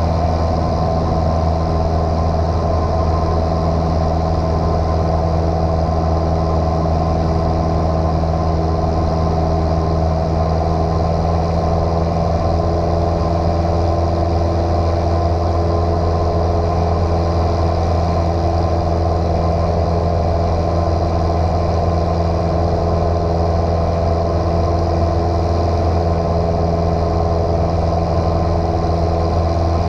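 Light single-engine piston airplane's engine and propeller droning steadily in flight, heard from inside the cabin.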